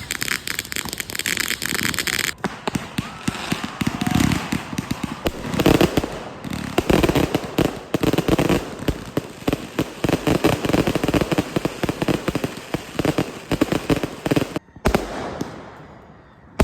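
A fireworks display: a dense, rapid run of crackling bangs and pops from bursting shells. It drops out suddenly a little before the end and goes on more quietly after.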